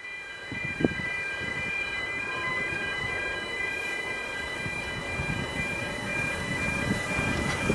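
Electronic warning alarm sounding steadily, several high tones alternating on and off in a regular repeating pattern, over a low rumble. A single sharp knock comes just under a second in.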